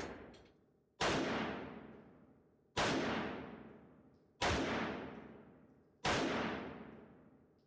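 Four single shots from an HK SP5K 9mm pistol, fired slowly about 1.7 seconds apart, each followed by a long ringing echo that fades out. The tail of an earlier shot dies away at the start.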